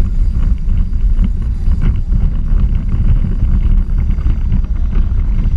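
Wind buffeting the microphone of a camera mounted on a small electric racing kart, over a steady low rumble from the kart running on asphalt, with light rattles.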